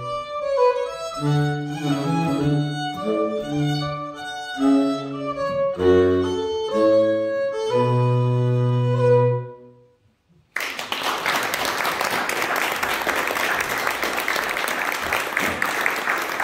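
Fiddle and baritone saxophone playing the last bars of a Swedish folk tune, the sax carrying the low bass line, ending on a long held note that fades about nine and a half seconds in. After a second's pause, applause starts and keeps going.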